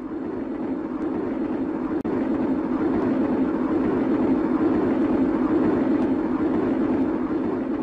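Steady low rumble of a railway carriage in motion, used as a radio-drama sound effect. It swells in level over the first few seconds, drops out for an instant about two seconds in, then runs on evenly.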